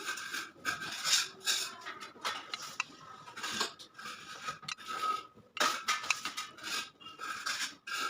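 Irregular rasping, scraping strokes of hand work on a hard material, with light clinks.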